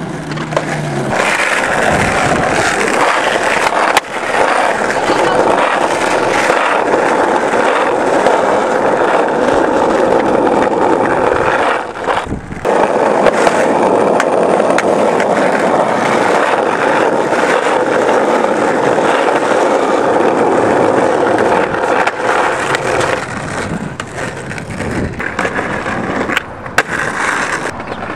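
Skateboard wheels rolling over rough asphalt, a steady gritty roll that breaks off briefly about twelve seconds in, with a few sharp knocks of the board near the end.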